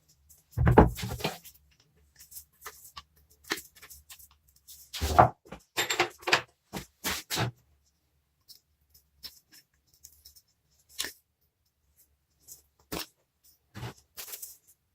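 Irregular knocks and clinks of hand work on a small rusty metal vise: a heavy thud about a second in, a quick run of knocks around the middle, then scattered light ticks.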